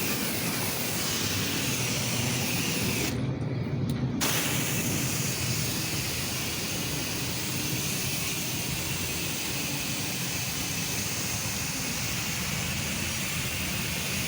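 Pressure washer running steadily with the hiss of its water jet. The high hiss cuts out for about a second a few seconds in while the machine keeps running.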